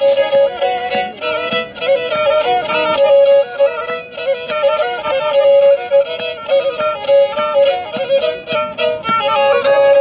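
Black Sea kemençe played solo: a fast bowed folk melody with quick ornamented runs over a steady held drone note.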